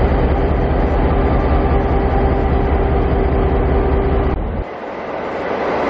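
Queensland Rail diesel locomotives idling at a standstill: a steady deep engine rumble with a constant hum over it. It cuts off abruptly about four and a half seconds in, leaving a quieter hiss.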